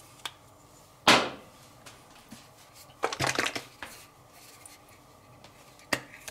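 Kitchen containers and utensils being handled while sauce ingredients go into a bowl: a sharp knock about a second in, a short run of rattling clicks around three seconds in, and a single click near the end.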